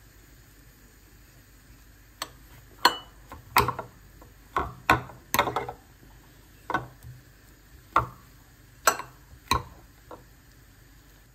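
Metal potato masher knocking against a glass mixing bowl while mashing boiled potatoes with butter: about a dozen irregular sharp clinks, starting about two seconds in.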